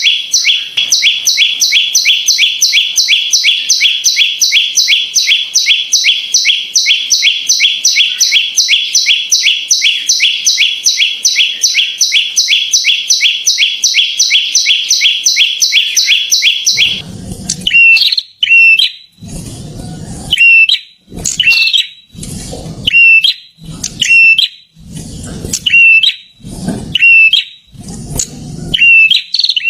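Prinia (perenjak) song: a fast, even run of repeated high chirps, about four a second. About 17 seconds in it changes to single short chirps roughly once a second, each paired with a low, rough sound.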